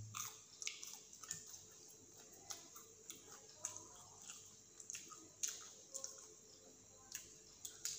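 Faint scattered clicks and soft crinkles of fingers handling fried snacks and a small sauce sachet over a plate, with quiet chewing.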